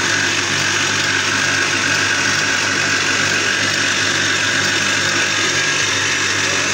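Electric stand mixer running steadily, its wire whisk beating egg whites into a white foam for chiffon cake meringue: a constant motor hum with a steady higher whine.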